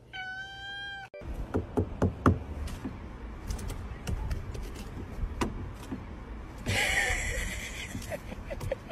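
A cat's single meow, about a second long. Then a run of knocks, taps and rustling from a raccoon moving about inside a car, with a hissing noise about seven seconds in.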